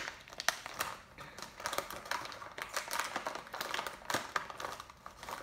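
Plastic snack bag crinkling and crackling as it is worked open by hand: a busy run of small, irregular sharp clicks.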